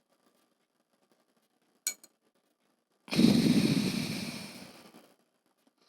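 A breath blown out hard through the nose, loud at first and trailing away over about two seconds, ending a round of ujjayi pranayama. A brief click comes about two seconds in.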